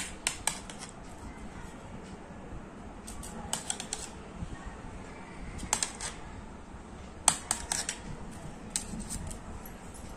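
A metal knife clicking and scraping against a stainless-steel bowl as set kharvas (colostrum pudding) is cut into pieces, in short clusters of sharp ticks every couple of seconds.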